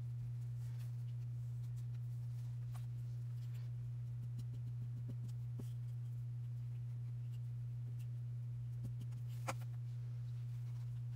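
Steady low hum under faint handling noise as lace and paper are arranged by hand and a glue bottle is picked up: soft rustles with a few light clicks and taps, and one sharper click near the end.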